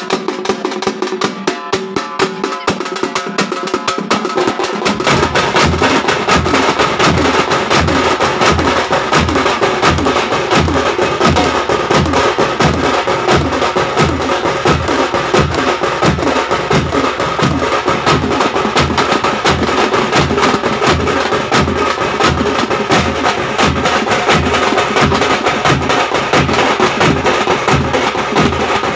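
A Tamil thappu (parai) drum ensemble plays. Frame drums are beaten rapidly with sticks, and about five seconds in, large stick-beaten bass drums join with a steady deep beat, about two a second.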